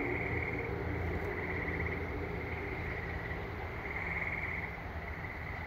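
Trilling insects calling in pulsing stretches that swell and fade, over a low steady rumble.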